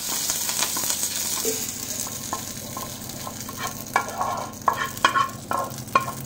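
Tempering of mustard seeds, dried red chillies and curry leaves sizzling in hot oil in a pan, the sizzle fading over the first couple of seconds. Then a few sharp metal clinks and scrapes of pan and utensil as the hot tempering is poured over coconut chutney in a steel bowl.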